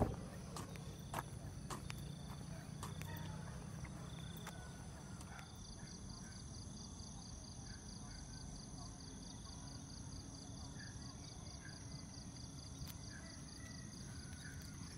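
Faint outdoor ambience of insects chirping: a high, fast pulsing trill sets in about five seconds in, over a low rumble, with a few light clicks in the first seconds.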